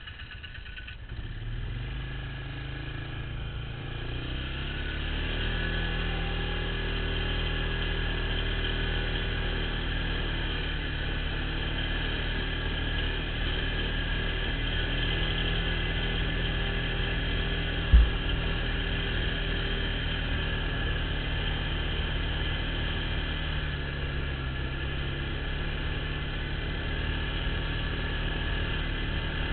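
An ATV engine running under way, heard from the machine itself. It picks up speed over the first few seconds, then holds a steady pace. One sharp thump comes about eighteen seconds in.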